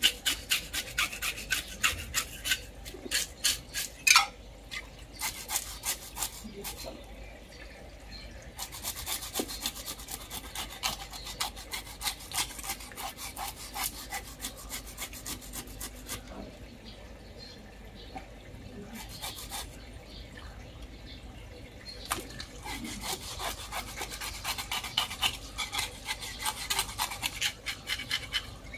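A knife blade scraping along the skin of a large bighead carp in quick repeated strokes, about three a second, as the scales are scraped off; the strokes pause briefly twice, and there is one sharper knock about four seconds in.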